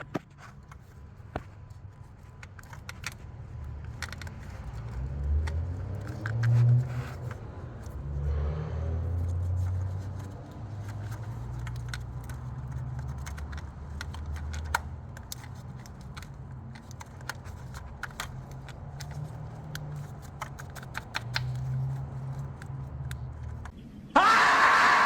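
Hands moving and tugging a wire in a car's engine-bay wiring harness, the EGR circuit wire, in a wiggle test for an intermittent voltage change: scraping, rustling and small clicks over a rumble that rises and falls. A short, louder sound with a rising pitch comes near the end.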